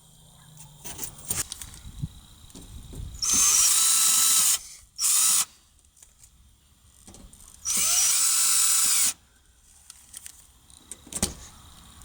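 Cordless drill driving sheet-metal screws back into an HVAC unit's panel: three short runs of the motor with a whine, the first about a second long, then a brief one, then one of about a second and a half, with light handling clatter between.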